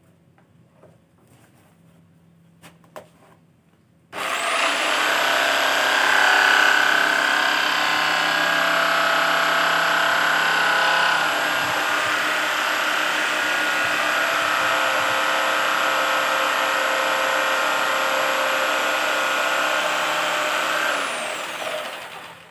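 Electric jigsaw cutting acrylic sheet: after a few faint clicks the motor starts abruptly about four seconds in, runs steadily with a high whine under load, and winds down near the end.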